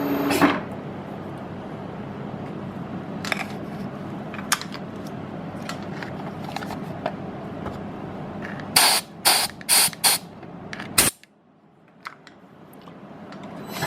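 Compressed-air blowgun blowing metal chips out of a drilled stud hole: a steady hiss, then four short, loud blasts about two-thirds of the way in, cutting off suddenly. Near the end the milling machine's noise builds up again.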